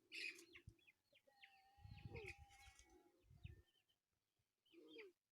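Near silence with faint, short chirps scattered through it, and a soft low rumble about two seconds in.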